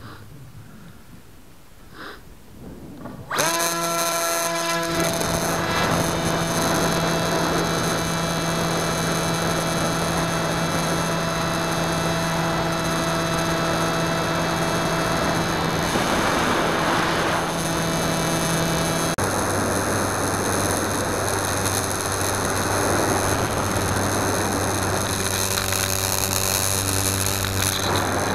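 Electric motor and propeller of a Skywalker 1900 FPV plane, heard from its onboard camera: after about three seconds of quiet the motor throttles up suddenly with a brief rising whine, then runs steadily with a hiss behind it. A little over halfway through the whine drops to a lower, steady pitch.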